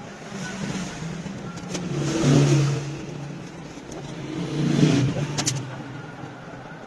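Car engine revved twice, rising and falling about two and five seconds in, with a few sharp clicks just after the second rev.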